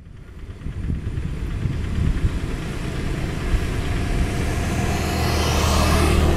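A motor engine running steadily at idle with a low, even hum, fading in over the first second. About five to six seconds in, a hiss swells up and dies away over it.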